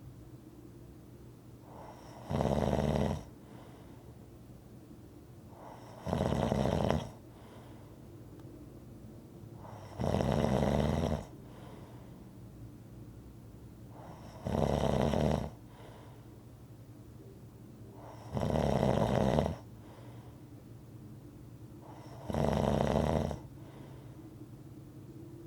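A person snoring in a steady rhythm: six snores, each about a second long, coming one every four seconds or so.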